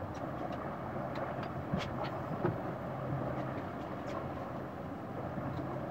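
Boat engine running at a steady low hum, over an even rush of wind and water, with a few light knocks about two seconds in.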